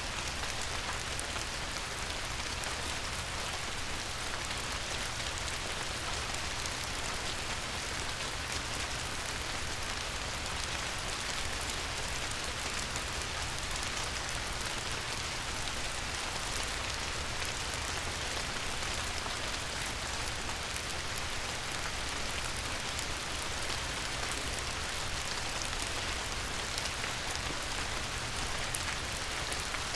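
Light rain falling on a river: a steady, even patter of many small drops on the water's surface.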